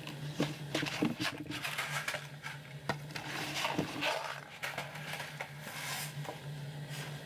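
Scattered clicks, taps and rustles of a hand handling the camera up close, over a steady low hum.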